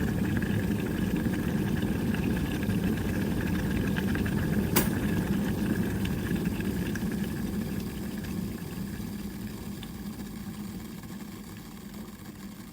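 Electric kettle at a rolling boil, a steady rumbling bubbling. About five seconds in there is one sharp click, fitting the kettle's switch turning off at the boil, and the bubbling then dies away gradually.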